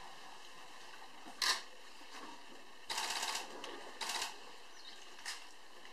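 Camera shutters firing in rapid bursts over faint outdoor background: a short burst about a second and a half in, a longer run of fast clicks about three seconds in, another burst just after four seconds and a brief one near the end.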